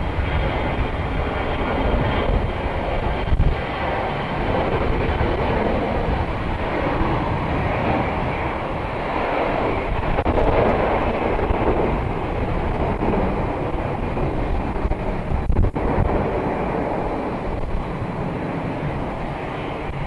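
Jet airliner engines running, a steady rush that grows strongest around the middle and then eases, with gusty wind rumbling on the microphone.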